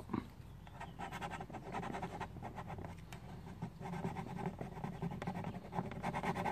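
Plastic scraper rubbing and scraping along the edge of a plastic scooter body panel in many quick, short strokes, working off leftover glue residue.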